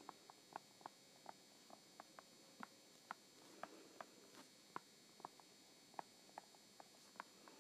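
Faint, irregular clicks and taps of a stylus on an iPad's glass screen during handwriting, about three a second, over a low steady hiss.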